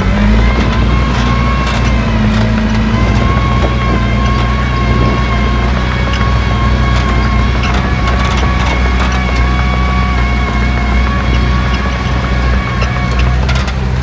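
Heavy earthmoving machine's diesel engine running steadily, with a steady high whine over the engine note.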